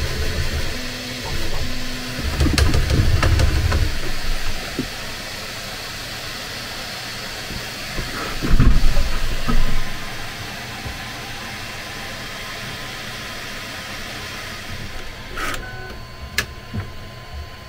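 Bambu Lab 3D printer running a print, its motors moving the head and bed in short steady tones with louder low-pitched movement about three seconds in and again about nine seconds in, then a few sharp clicks near the end.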